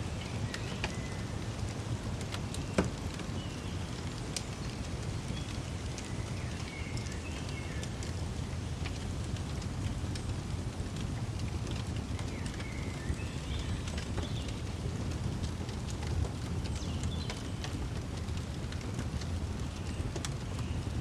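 Fireplace crackling: a steady low rumble with scattered pops, one sharper pop about three seconds in. Faint bird chirps come and go over it.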